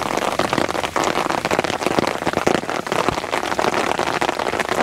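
Steady rain pattering on a fabric umbrella canopy overhead, a dense, even ticking of many drops.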